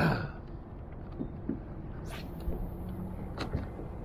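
Wind rumbling on the microphone, with a few faint knocks and a brief high hiss about two seconds in.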